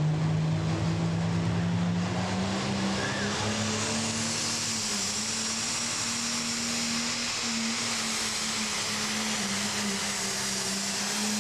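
Turbocharged diesel engine of a limited pro stock pulling tractor running hard under load as it drags the weight sled. Its pitch rises over the first two seconds, then holds steady, and a high hiss builds from about four seconds in.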